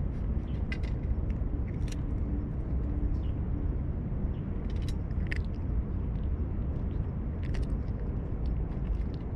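Cat eating dry kibble from a metal tray, short crisp crunches now and then, over a steady low rumble.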